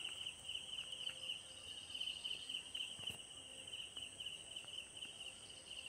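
Insects chirping steadily: a continuous high, finely pulsing trill, with a fainter, higher steady hiss above it.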